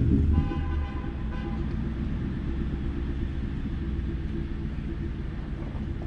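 1999 Ford Crown Victoria's 4.6-litre V8 breathing through Flowmaster mufflers, dropping back from a rev in the first second and settling to a steady idle with a low rumble. A brief high tone sounds about half a second in.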